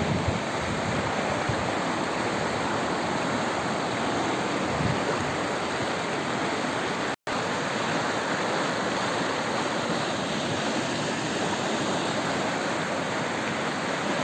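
A small river in flood after heavy rain, its fast, high water rushing steadily. The sound drops out for an instant about seven seconds in.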